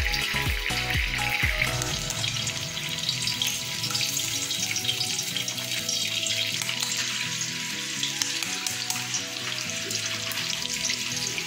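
Raw eggs sizzling steadily as they fry in hot oil in a wide aluminium kadai.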